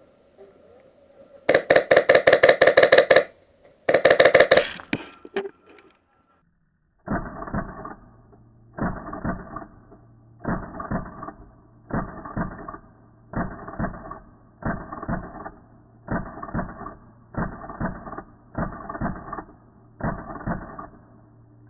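Electric airsoft gun firing two full-auto bursts of rapid clicking shots, the first about a second and a half long, the second shorter. Then comes a slow series of about ten evenly spaced dull knocks, one every second and a half or so, over a low hum.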